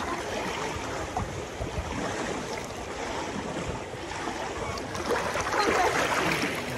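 Steady outdoor swimming-pool ambience: a noisy wash of water and wind. Faint distant voices come in from about five seconds in.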